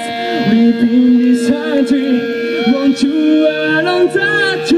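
Rock band playing live through a PA, a male voice singing over a long held steady note.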